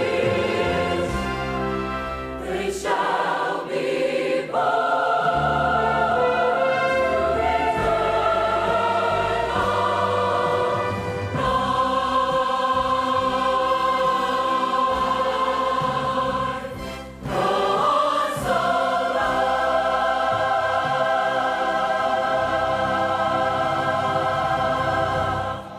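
Large choir singing in long held chords, with a brief break about two-thirds of the way through, then a final held chord that fades off at the very end.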